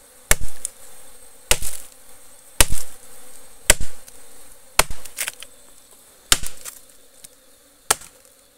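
A blade chopping into a tree trunk, about one sharp blow a second, cutting into a wild bees' nest in the trunk. A steady hum of buzzing bees runs underneath.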